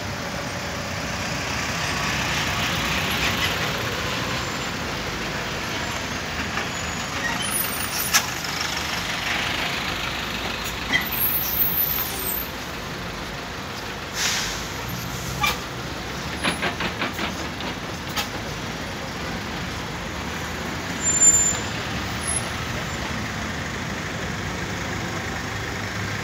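Diesel city buses and cars passing close by on a busy street, giving steady traffic noise. Over it come several brief sharp sounds, among them a short hiss about fourteen seconds in and a louder short sound about twenty-one seconds in.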